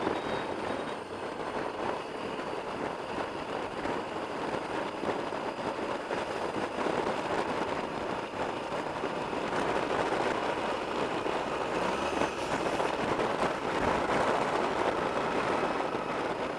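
Motorcycle riding noise picked up by a camera on a moving bike: a steady rush of wind and engine at town speed, swelling slightly in the second half.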